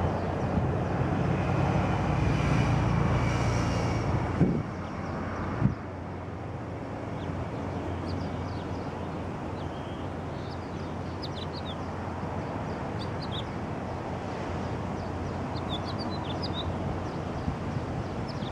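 A loud, low engine-like hum with several steady tones fills the first four seconds or so and ends with two sharp knocks. After that, a quieter steady background hum runs on, with scattered short, high chirps of small birds.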